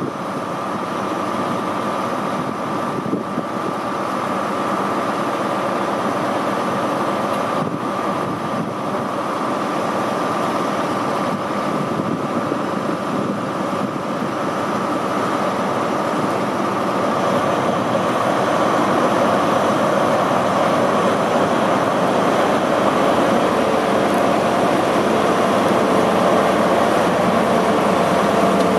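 Class 43 HST power car's MTU 16V4000 diesel engine running with a steady whine. In the second half it gets louder as the engine powers up and the train starts to pull away.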